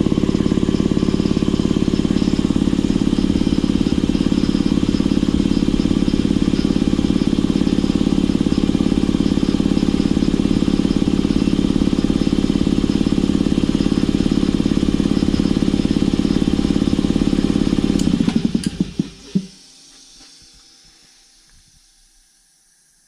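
Rebuilt Ingersoll Rand T-30 2475 two-stage piston air compressor running steadily and pumping air with a fast, even pulse. About eighteen seconds in it is switched off and coasts to a stop, its strokes slowing over a second or so.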